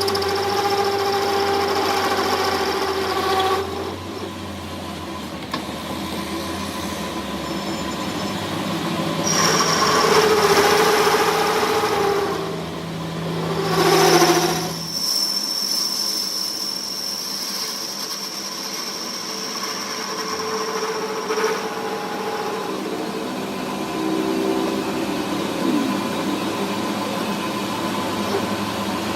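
Workshop machinery running with a steady whine whose pitch shifts a few times, swelling louder about ten and fourteen seconds in.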